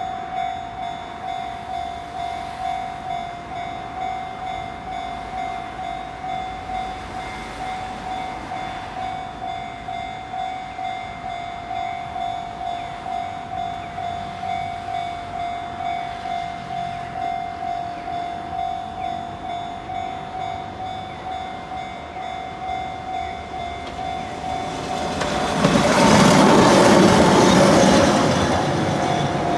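Level crossing warning bell ringing steadily, a bit more than one ding a second. Near the end a Keihan 600-series two-car train runs over the crossing with loud wheel and rail noise that builds, peaks and eases off while the bell keeps ringing.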